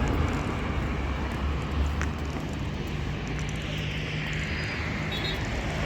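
A motor vehicle's engine running with road noise, a low rumble with a steady hum setting in about a second and a half in.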